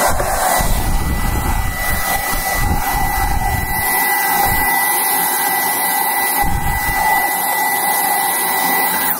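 Dyson cordless stick vacuum running steadily with a high whine, sucking dust out of the base of a dryer, then cutting off suddenly at the end.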